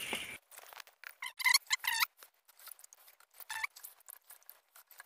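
Soaked sticky rice being scooped by hand from a metal pot of water and pushed into a green bamboo tube: a brief wet trickle, then scattered wet clicks and patters of grains, with a few short squeaks.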